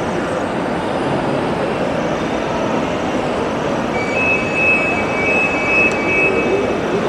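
Steady, even background din of a large indoor shopping-mall hall. About four seconds in, a thin high tone at two pitches together flickers on and off for a couple of seconds.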